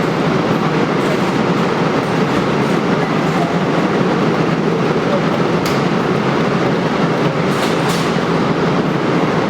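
Steady, dense arcade din: many game machines running together as one even wash of noise.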